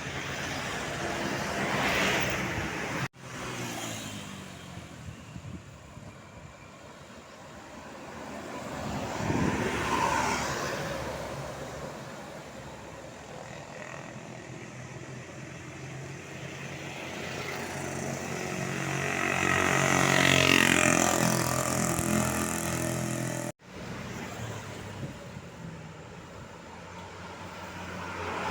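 Road vehicles passing by one after another, each swelling and fading away, three times. The loudest pass comes about two-thirds of the way in, with a steady engine hum under the road noise. The sound breaks off abruptly twice.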